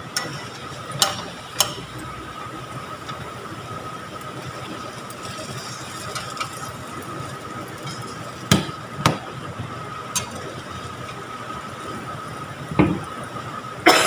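Metal tongs clicking and scraping against a wok as sweet potato fritters are turned and lifted out, a handful of sharp taps spread out with the loudest near the end, over a low steady sizzle of frying oil.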